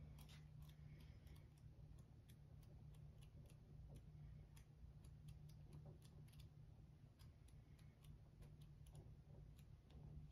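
Near silence: a low steady hum with faint, irregular light ticks, a few a second.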